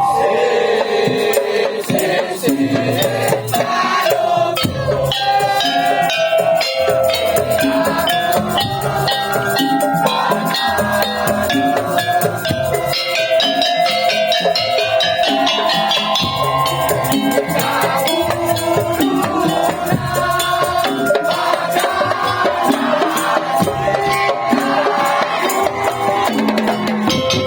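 Madurese tong-tong music: a percussion ensemble of wooden and bamboo slit drums (kentongan) and drums beats out a dense, driving rhythm, with a pitched melody wavering over it.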